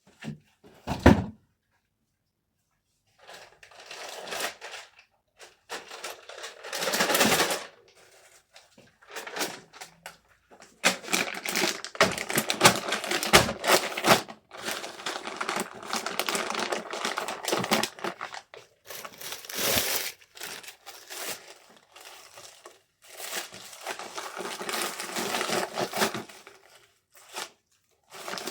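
Packing materials being handled: rustling and crinkling in several stretches, with clicks and taps, and a sharp knock about a second in.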